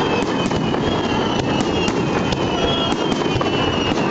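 Fireworks display: a dense, continuous rumble of shell bursts with many sharp cracks, several a second.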